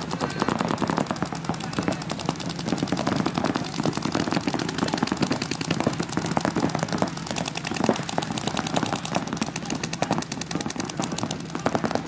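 Paintball markers firing in rapid strings of shots, many shots a second, going on without a break.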